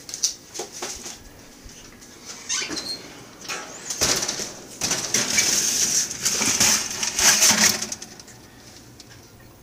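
A few clicks and knocks, then about four seconds of crinkling aluminium foil and scraping as a foil-lined baking tray is slid onto the metal oven rack.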